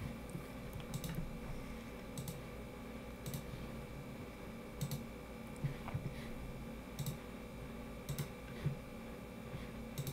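Scattered clicks of a computer mouse and keyboard, about one every second at irregular spacing, over a faint steady hum.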